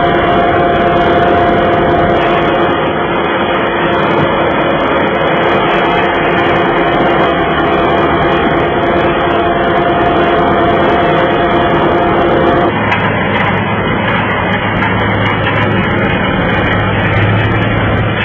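Broce RJ350 road broom working, its diesel engine and rotating brush making a steady, loud noise. A whine carries over it until about two-thirds of the way through, then stops and leaves a lower hum.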